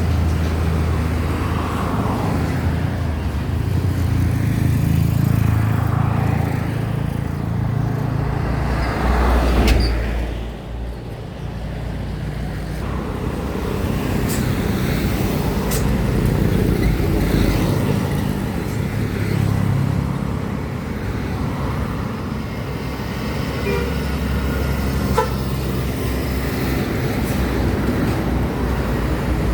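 Road traffic of heavy diesel trucks climbing a grade, their engines droning low and steady, with one vehicle passing close about ten seconds in. A vehicle horn toots briefly.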